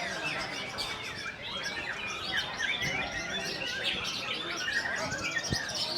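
Many contest songbirds, white-rumped shamas (murai batu), singing at once: a dense, unbroken tangle of overlapping whistles, slurs and chirps.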